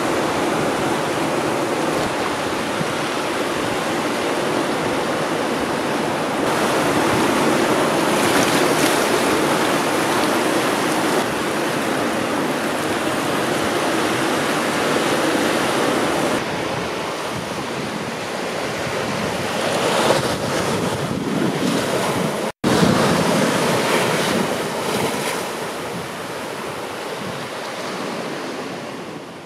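Sea surf: seawater washing in and out over shallow rock pools, then small waves breaking on a beach. A steady rushing wash that changes abruptly a few times, with a split-second dropout about three-quarters of the way through.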